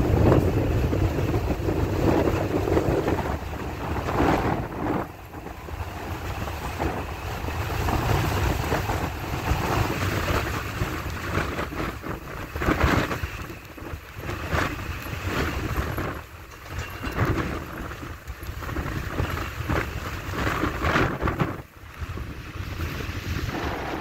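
Strong gusting wind buffeting the microphone in a severe windstorm: a rumbling rush that swells and eases every few seconds, with deep lulls between the gusts.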